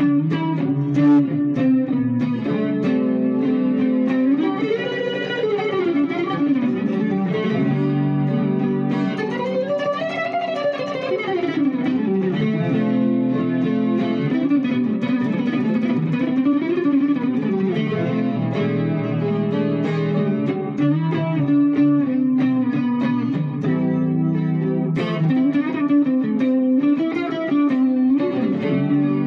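Electric guitar playing a slow instrumental piece with effects, sustained notes gliding slowly up and down in pitch over held chords.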